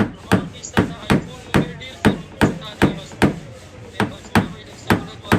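Steady, rhythmic hammer taps on a car's sheet-metal body panel, about two or three strikes a second with a short ring after each, as in tapping out hail dents.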